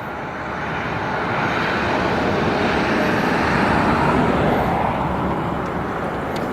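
Whoosh transition sound effect: a long rush of noise that builds gradually for about four seconds and then eases off, much like something passing by.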